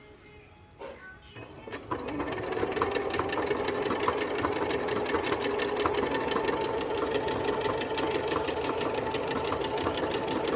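Elna 6200 Decorator's Touch sewing machine starts stitching about two seconds in and runs steadily, with rapid even ticking of the needle, sewing out a decorative stitch pattern. A few light clicks come before it starts.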